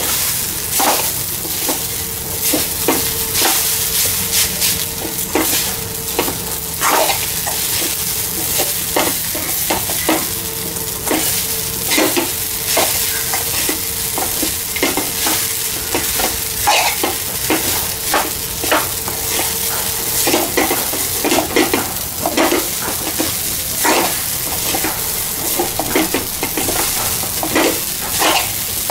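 Metal spoon stirring and scraping sago pearls (sabudana khichdi) around a metal kadhai, with repeated irregular scrapes and clinks over a steady sizzle of the food frying.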